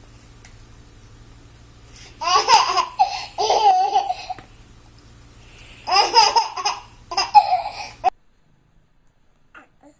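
A young child laughing in four bursts, the first about two seconds in, then the sound cuts off suddenly a little after eight seconds.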